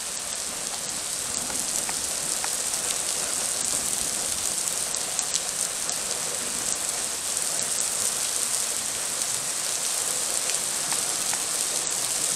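Heavy rain pouring onto asphalt pavement: a steady hiss with scattered sharp ticks of individual drops.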